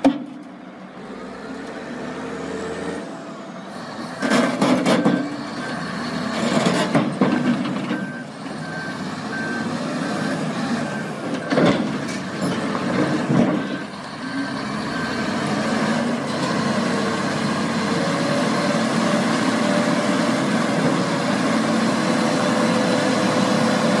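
Two large wheel loaders' diesel engines running hard as the machines push against each other bucket to bucket, with several sharp clanks of the steel buckets striking. A reversing alarm beeps through the middle stretch, and near the end an engine note climbs a little and holds.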